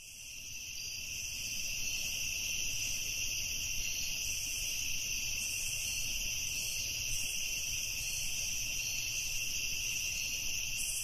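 Chorus of crickets chirring steadily at a high pitch, fading in over the first couple of seconds.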